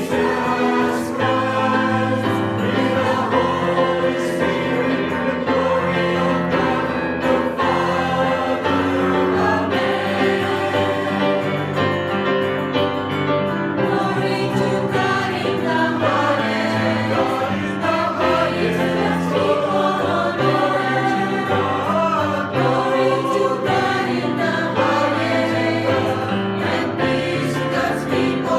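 A mixed church choir of women's and men's voices singing a hymn together, the voices continuous and steady.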